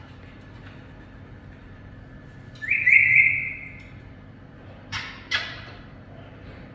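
Pet parrot giving one loud whistled note that starts sharply and fades slowly over about a second and a half, then two short harsh squawks a couple of seconds later.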